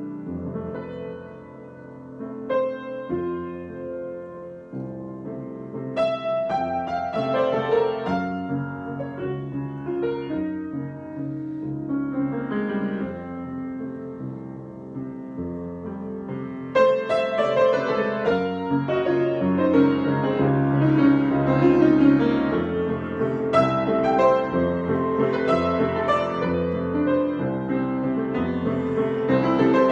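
Solo piano improvisation: chords with melodic lines over them, soft in the first few seconds, then becoming fuller and louder a little past halfway.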